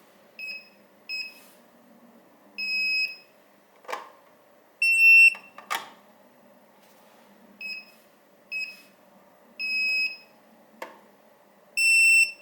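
Electronic beeps from a Retekess TD164 paging system, in a sequence heard twice: two short keypad beeps, a longer beep, a click, then a louder, slightly higher long beep. This fits keying in a pager number and pressing CALL, then a pager beeping once as it is lifted off the charging base, the sign that it has been programmed.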